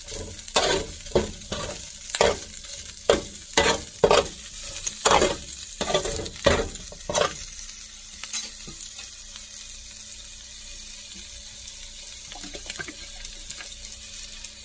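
Slotted spatula scraping and knocking against a paella pan, about twice a second, while pieces of chistorra sausage fry and sizzle in oil. The stirring stops a little past halfway, leaving only a quieter, steady sizzle.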